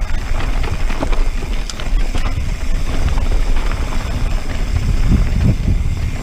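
A mountain bike rolling fast down a dirt-and-gravel trail, heard through the following rider's action-camera microphone. Wind rumbles steadily over the microphone, and the tyres crunching on gravel and the bike clattering over bumps make a stream of short clicks and knocks.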